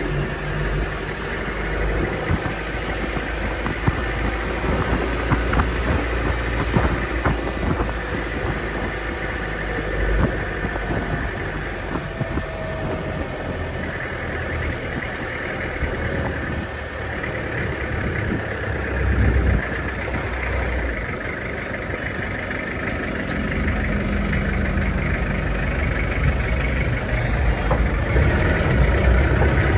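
Mahindra MM540 jeep's engine running with road noise while driving, heard from inside the cab. Steady throughout, getting a little louder near the end.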